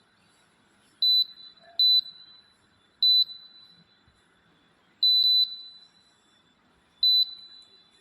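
Candes fan's electronic control board beeping on mains power: short, high beeps at uneven intervals of one to two seconds, with one longer beep about five seconds in. This repeated beeping is the fault the fan is showing.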